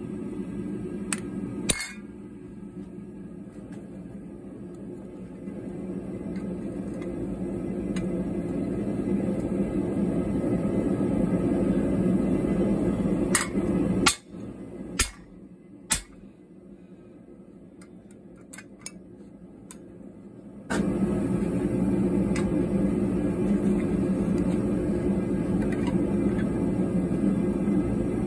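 Separate sharp hammer strikes on a steel drift over the anvil, a couple near the start and a cluster in the middle, against a steady low roar that cuts off for several seconds midway and returns abruptly.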